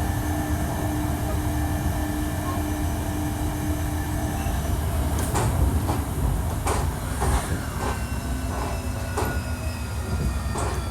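Running sound of a Hankyu 1300 series electric train heard on board. A steady motor tone cuts out about four and a half seconds in, then come sharp wheel clicks over the track and high wheel squeal, with a lower motor tone starting again about eight seconds in.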